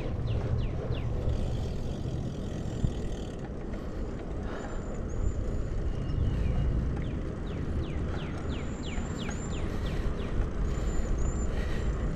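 Steady wind and road rumble from riding a road bicycle, heard on the rider's camera microphone. Twice a run of quick, high whistled notes, each falling in pitch, sounds over it.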